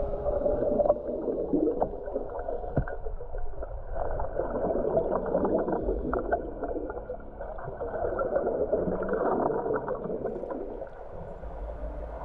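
Muffled underwater bubbling and gurgling of a scuba diver's air around a lift bag, heard underwater, with scattered small clicks.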